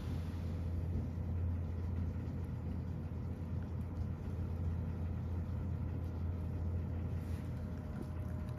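A cat eating soft food from a bowl, with a few faint chewing clicks, over a steady low hum.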